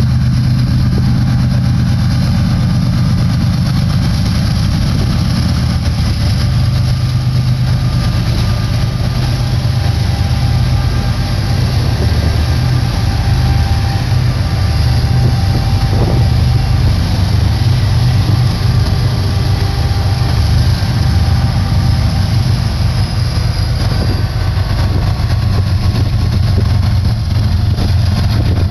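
Diesel-electric locomotives of a slow BNSF freight train passing close by, their engines running with a steady, loud low drone.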